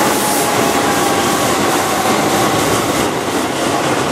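Keihan Electric Railway commuter train running past close by: a loud, steady rumble of steel wheels on rail with a few faint steady whining tones over it.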